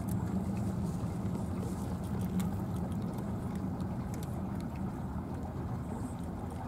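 A steady, low engine drone, with faint, irregular crunching clicks of cats chewing dry cat food.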